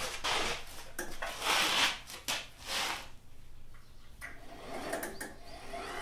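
Wheeled sack cart for 30 kg rice bags being handled and pulled over the floor: irregular rattling and scraping of its metal frame and wheels, with a few short knocks.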